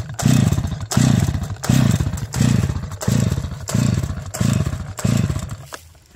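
Stihl MS 250 two-stroke chainsaw's recoil starter cord yanked about eight times in quick succession, the engine turning over with a rising-and-falling whirr on each pull but never catching, stopping near the end. The choke lever sits at full choke on a warm engine, so the repeated pulls are flooding it.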